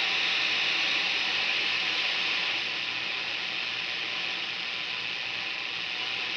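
Steady hiss of static from a National NC-240D tube communications receiver through its matching speaker, tuned to a spot where no station comes through.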